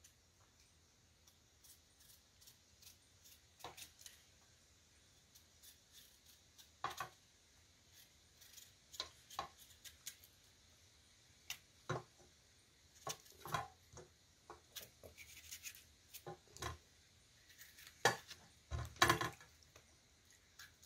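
Knife peeling a chocho (chayote) by hand over a metal bowl: faint, scattered scrapes and clicks of the blade at irregular intervals.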